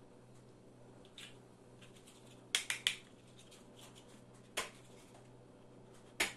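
Large plastic building blocks clacking as they are handled and pressed onto each other: a faint click about a second in, a quick run of three sharp clacks near the middle, then single clacks twice more, the last near the end.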